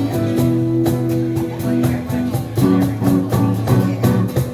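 Live band playing an instrumental passage of a song: sustained melody notes and a bass line over a steady drum beat.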